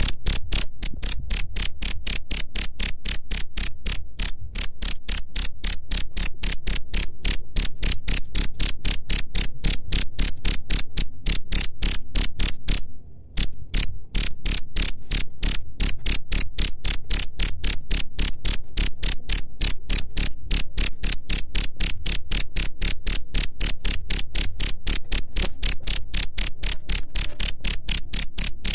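Cricket chirping loudly in a fast, even rhythm of several high-pitched chirps a second, with one brief break about halfway through.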